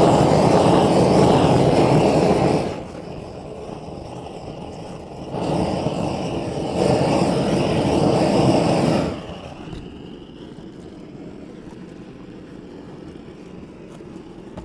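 Propane detail torch flame roaring in two long bursts, about two and a half and then four seconds, as it heats torch-down roofing membrane to tack the sheet in place. Between the bursts and after them the flame keeps burning with a quieter steady hiss.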